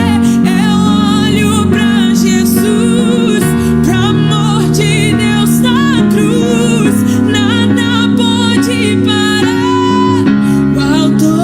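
Gospel music playing: a melody with vibrato over sustained chords and a bass line.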